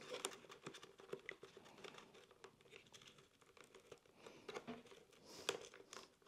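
Faint rustling and small clicks of hands tucking an intercom cable into a motorcycle helmet's liner and cable channels, with one sharper click near the end.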